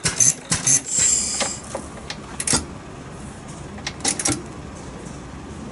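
Old Kubota C-type stationary engine turning over with sharp mechanical clicks, about three or four a second at first and then thinning to a few scattered clicks. There is a short hiss about a second in.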